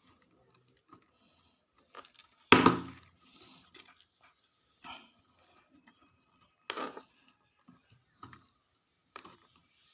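Handling noise: scattered clicks and knocks, with one much louder knock about two and a half seconds in.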